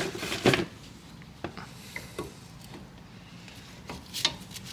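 Metal knocks and clicks of a brake caliper and its hardware being handled and fitted back over new pads: two sharp knocks at the start, a few light clicks, then more knocks about four seconds in.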